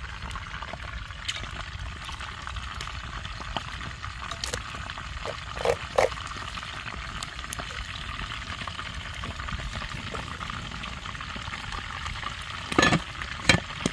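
Wooden chopsticks working through freshly cooked rice in an aluminium pot over a wood fire, with a steady hiss and scattered small ticks. A few louder knocks stand out, two about six seconds in and two near the end.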